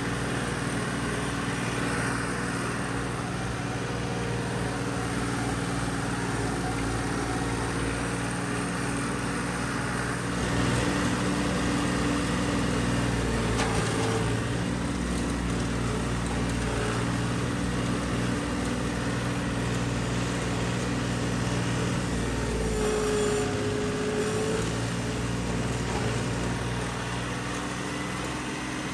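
John Deere farm tractor engine running steadily under way across a field, with a brief whine about three quarters of the way through.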